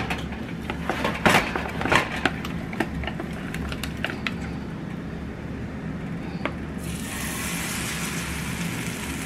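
Pancake batter ladled into hot canola oil in a small frying pan, setting off a steady sizzle about seven seconds in. Before it, the heating oil and utensils give scattered sharp pops and clicks.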